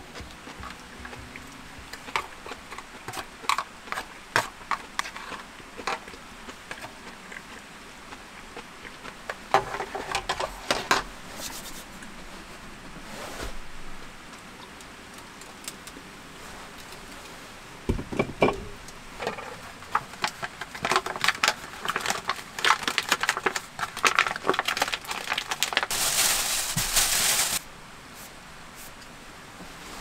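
Handling sounds of eating and clearing up at a wooden table: chopsticks clicking and scraping in an aluminium foil tray, the foil crinkling, and slurps. A single thump comes about 18 s in, and a loud stretch of crinkling and rustling follows near the end.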